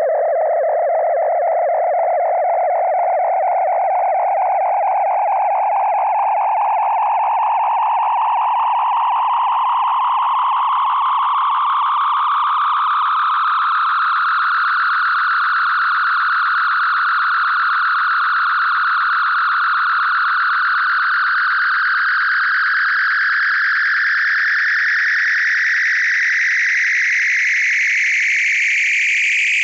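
Synthesized Star Trek sound effect: a steady, buzzy, fluttering electronic tone that climbs slowly in pitch, levels off around the middle, then climbs again near the end.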